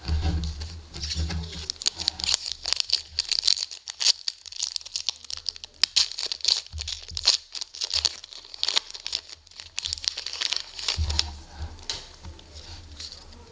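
Foil wrapper of an SPx hockey card pack crinkling and tearing as it is pulled open by hand, a dense run of crackles through the middle.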